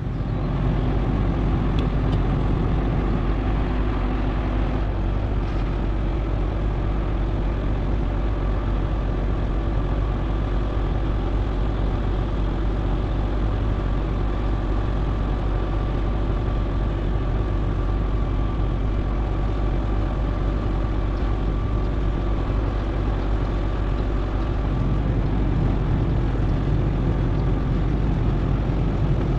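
Peterbilt semi truck's diesel engine running steadily, powering the pump that unloads cold, thick oil from the tanker trailer. A faint steady whine sits over the drone through the middle.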